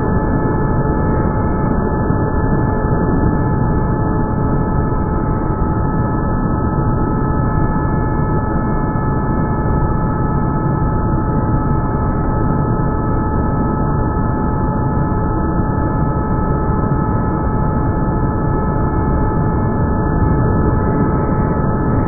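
Vacuum cleaner running steadily through its bare round nozzle: a constant rush of drawn air with a steady motor whine in it.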